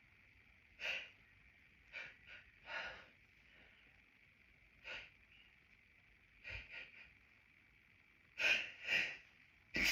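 A woman's short sniffs and catching breaths between hay fever sneezes: about seven quiet ones, then two louder gasping in-breaths near the end as the next sneeze builds.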